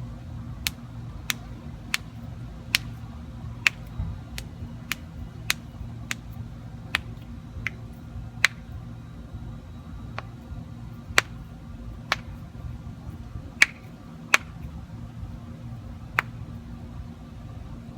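A woman cracking her knuckles joint by joint: about eighteen sharp pops, spaced half a second to a second or two apart, the loudest about three-quarters of the way through, over a steady low hum.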